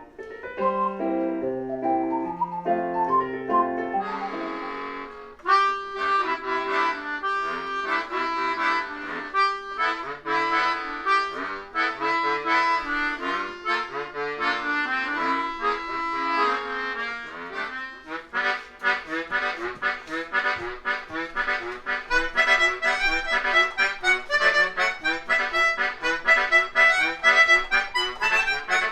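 Live instrumental music from an ocarina and keyboard duo with a reedy lead, growing busier with quick repeated notes about two-thirds of the way through.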